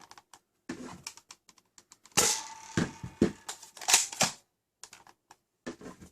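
ZWQ S200s Viper spring-powered foam-dart blaster being worked: a string of plastic clicks and clacks from the slide and magazine, with two louder sharp clacks about two and four seconds in.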